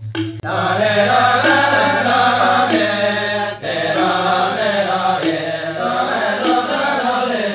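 Genjek: a Balinese men's vocal ensemble chanting together in several interlocking parts over a low steady drone, with a brief break about three and a half seconds in.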